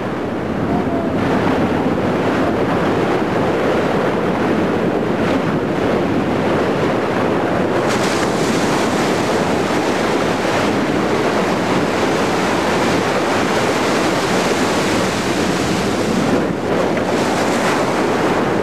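Rough sea and strong wind: waves breaking and spraying around a small boat, with wind buffeting the microphone. The rushing noise holds steady and turns hissier about eight seconds in.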